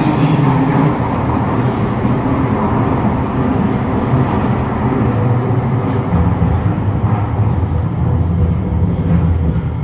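Steady rumble of an SMRT C751B metro train running on the track, heard from inside the carriage, with a faint steady hum from its permanent-magnet synchronous traction motors.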